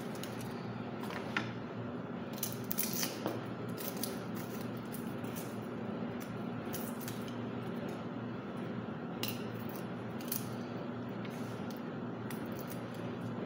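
Garlic cloves being peeled with a kitchen knife: small irregular clicks and scrapes of the blade against the papery skins, over a steady low hum.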